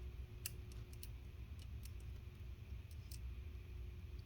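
Several faint, sharp little clicks over a low steady hum, the clearest about half a second in and about three seconds in: the laptop's white Wi-Fi antenna lead and its tiny snap-on connector being handled and pressed onto its terminal.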